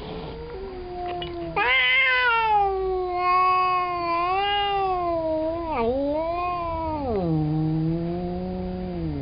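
A domestic cat caterwauling: a low moan that breaks about a second and a half in into one long, loud yowl, wavering in pitch. Near the end the yowl falls into a low growling tone. It is the agitated yowl of a cat facing a housemate cat it does not recognise in a cone collar.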